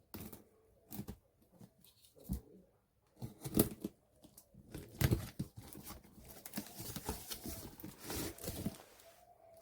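Toy packaging being opened by hand: irregular tearing and crinkling with small taps and clicks, sparse at first and busier from about halfway through.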